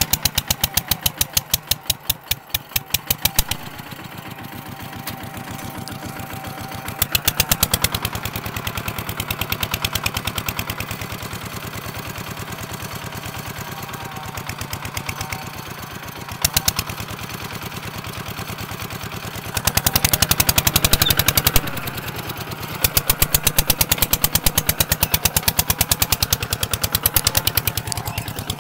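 Kubota ZT180 single-cylinder diesel engine running with a fast, even chugging pulse. It grows louder and clattery in stretches, most strongly about twenty seconds in, as the engine is worked harder.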